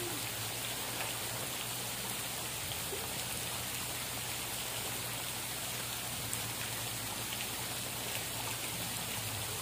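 Steady hiss of water with a faint, steady low hum underneath.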